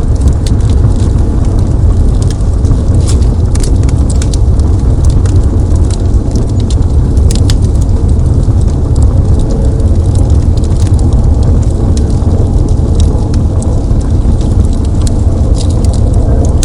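Fire in a fireplace crackling, with frequent small, irregular pops over a steady deep rumble.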